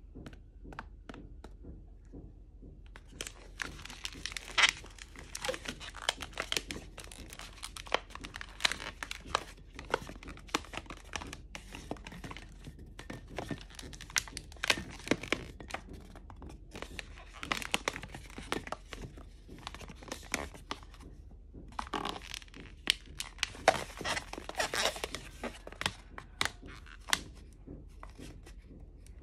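Inflated latex modelling balloons being twisted and handled by hand: the rubber rubs and squeaks in a dense, irregular run of crackles, with a short pause about two seconds in.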